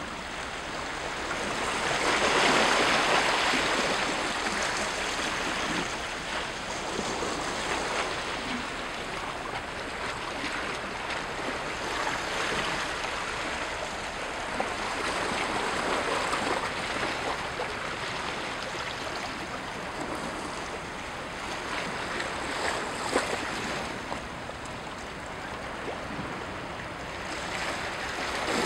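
Small waves washing and lapping against shoreline rocks, swelling and easing in surges every few seconds.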